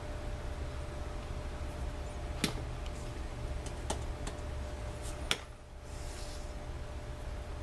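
Steady low hum of room tone with a few faint, sharp clicks and taps scattered through it, about four in all.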